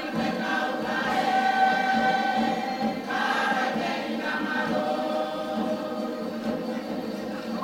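A large group of voices singing together in chorus, in the style of a Cook Islands song, holding long notes in harmony.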